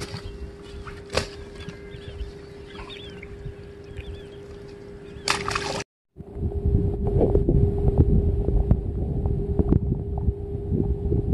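Wind buffeting the microphone in a low rumble, loudest in the second half after a brief dropout about six seconds in, over a steady hum. Before the dropout, faint bird calls.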